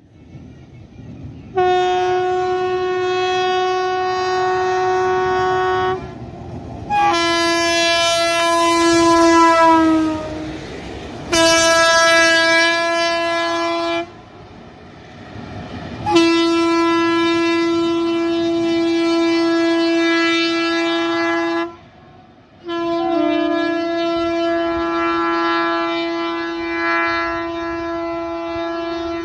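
Indian Railways locomotive horn sounding five long, loud blasts with short gaps between them. The second blast sags in pitch as it ends.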